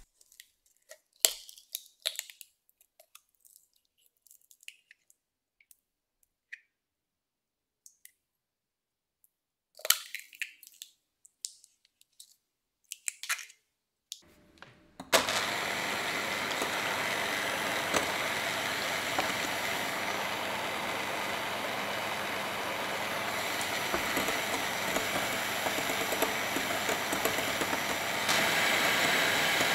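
Scattered taps and clicks of eggs being cracked and separated over a glass bowl. About halfway through, an electric hand mixer starts and runs steadily, whipping egg whites in the glass bowl, and grows louder near the end.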